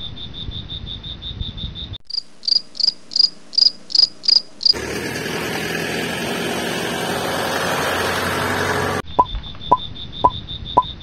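Crickets chirping: a fast, even trill for the first two seconds, then about eight separate higher chirps, roughly three a second. From about five to nine seconds a steady rushing noise takes over, then the fast trill returns with a few sharp clicks near the end.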